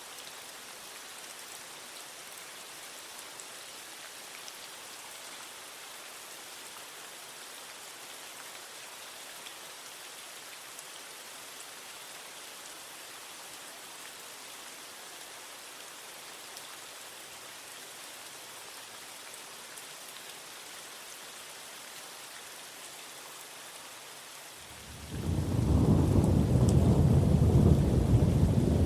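Steady rain falling on concrete, an even hiss. About 25 seconds in, a loud rolling rumble of thunder comes in underneath and carries on to the end.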